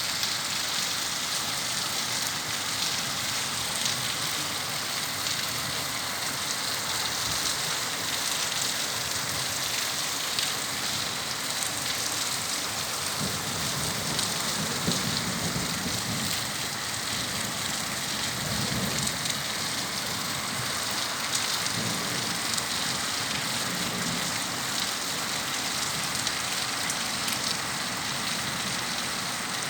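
Steady, heavy rain falling and pattering on surfaces, an even hiss throughout. A few low rumbles come and go about halfway through.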